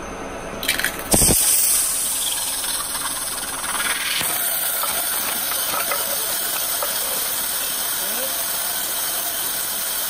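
Waterjet cutter's high-pressure water jet blasting into a coffee pod: a steady machine hum, then a sharp burst about a second in, after which a loud, even hiss holds as the jet drives water through the pod.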